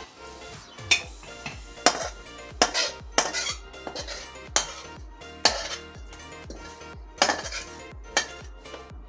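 Aluminium kadhai and metal pot tongs clanking and scraping against the rim of an aluminium pressure cooker as cooked jackfruit is tipped out of the pan. There are about eight sharp metal clanks and scrapes, over background music with a steady beat.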